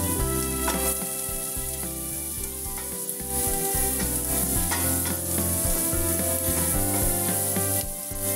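Sliced shallots and garlic sizzling in hot oil in a steel pot, stirred with a wooden spatula.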